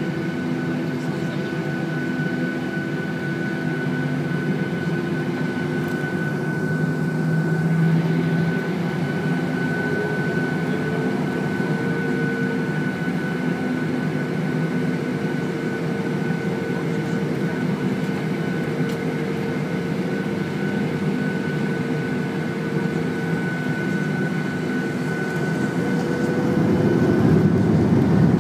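Cabin sound of a Boeing 737-800's CFM56 jet engines at taxi: a steady hum with a high whine, and a tone that rises about ten seconds in, then holds. Near the end it grows louder as the engines spool up for the takeoff roll.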